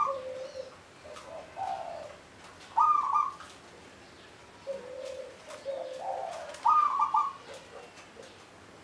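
Local Javanese zebra dove (perkutut) cooing: two full song phrases, each a low coo, a slightly higher coo, then a loud higher closing note.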